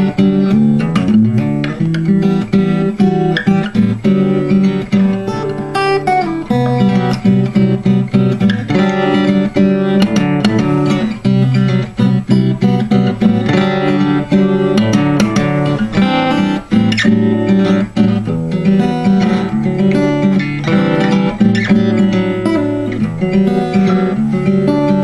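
Solo acoustic guitar fingerpicked in double drop D tuning: a steady run of plucked melody notes over low bass strings.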